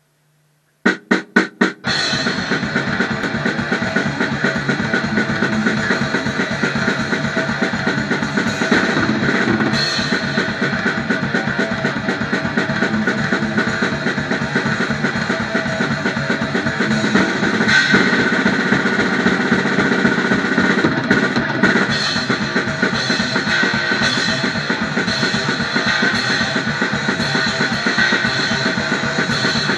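Thrash metal played by an electric guitar and a drum kit. It starts with four quick hits about a second in, then the band plays continuously with a fast, steady bass drum and cymbals.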